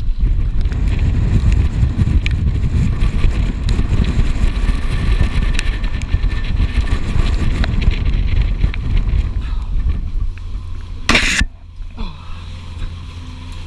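Wind and engine noise aboard a catamaran under way: a loud, uneven low rumble that, after a short burst of hiss about eleven seconds in, drops suddenly to a quieter, steady low hum.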